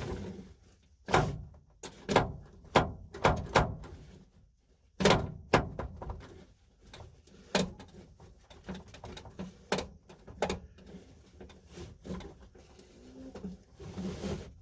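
Seat belt webbing being pulled out of the retractor and let back in. A quick run of sharp clacks and thuds comes first, then lighter clicks spaced about a second apart.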